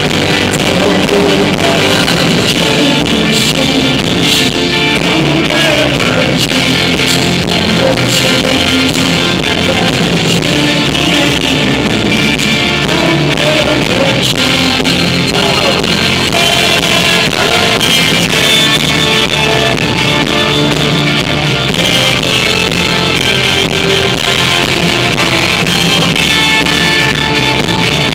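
Rock band playing live through an arena PA: electric guitars, bass and drums, heard from the crowd.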